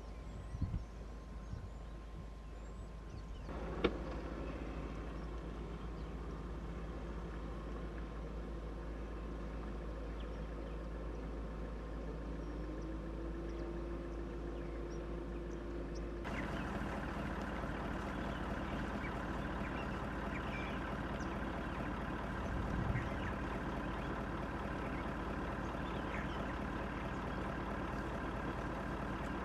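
Steady hum of an idling vehicle engine. It changes character abruptly twice, about four and sixteen seconds in.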